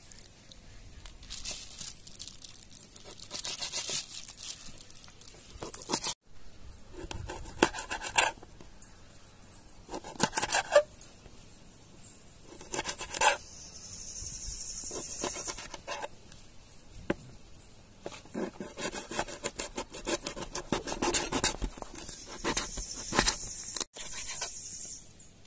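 A knife cutting the claw tips off raw chicken feet against a hard tabletop: irregular scraping strokes and sharp clicks of the blade on the table.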